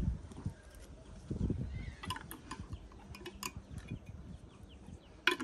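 Gusts of strong wind buffeting the microphone, with scattered short clicks and knocks, the loudest near the end.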